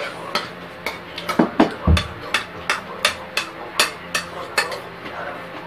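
Chopsticks clicking against a small rice bowl held up to the mouth while eating from it: a quick run of sharp taps, about three a second, with one duller knock about two seconds in.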